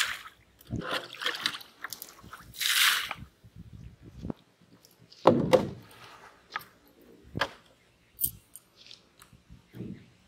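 Water flung from a plastic tub splashing onto a pond, with sloshing, and a few sharp knocks about halfway through and later.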